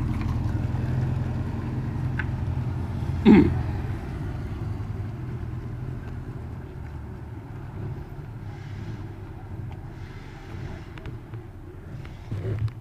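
A car engine rumbling at low speed, fading gradually as it moves away. A brief sharp sound stands out about three seconds in.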